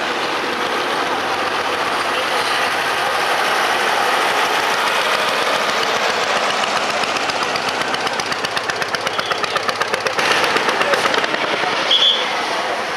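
A tractor engine running steadily as it drives past. From about seven seconds in comes the rapid, even thumping of an old single-cylinder hot-bulb tractor engine, about six beats a second, loudest around ten to eleven seconds. A brief high squeak comes near the end.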